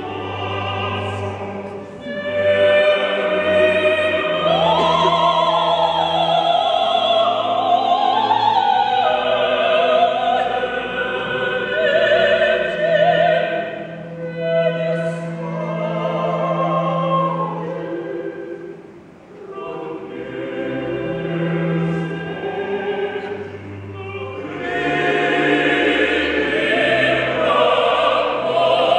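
Several opera singers singing together in an ensemble with orchestral accompaniment, their voices full of vibrato. The music thins briefly about two-thirds of the way through, then swells again.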